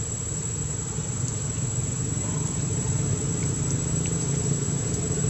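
Steady low engine hum, like a motor vehicle idling nearby, with a few faint ticks over it.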